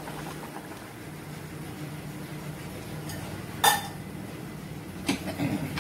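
A bowl knocks against the rim of an aluminium pressure cooker with one sharp, ringing clink about two-thirds of the way through, then a few softer knocks near the end, as coconut milk is poured into the simmering stew.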